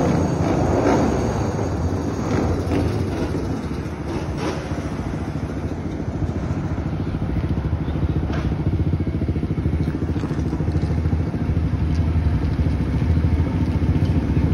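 ATV and motorcycle engines: one revving loudly in the first few seconds and easing off, then an engine idling with a steady, rapid pulse.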